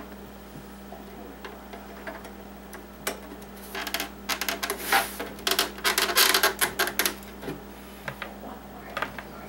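A serial DIN cable plug being worked into its socket on the back of a Commodore 1541 floppy drive: a close cluster of clicks and scraping that starts about four seconds in and lasts around three seconds.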